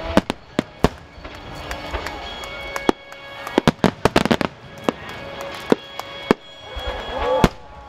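Wide starmine fireworks bursting in rapid succession, a string of sharp bangs that is densest about four seconds in, with the loudest bang near the end. Music plays underneath for the musical starmine.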